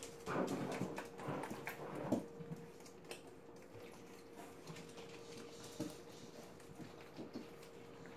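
Several puppies play-fighting on a tile floor: small dog noises and scuffling, busiest in the first two seconds, then quieter scattered scuffs and taps.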